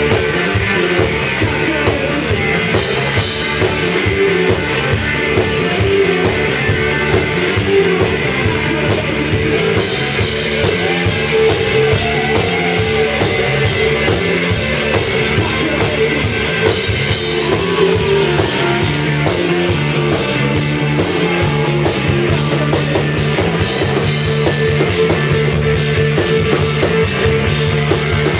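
Live rock band playing loudly: electric guitars over a steady drum kit beat.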